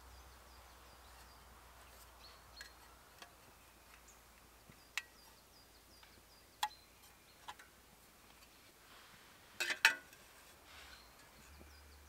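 Metal camp cookware being handled: a black perforated stove stand and an aluminium mess tin clink a few times, then give a louder double clank near the end as the tin is set down on the stand.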